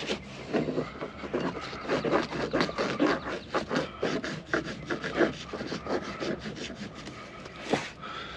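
Soapy scrubbing of a car seat-belt buckle: quick, irregular rubbing and scraping strokes, several a second.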